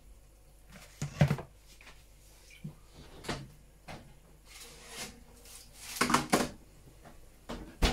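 A few separate knocks and clunks of kitchen handling, loudest in a cluster about six seconds in and again at the end.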